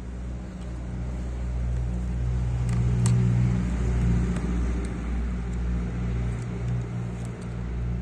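A low, steady motor hum that swells a few seconds in, with a few faint clicks from copper wire and a bamboo grid being handled.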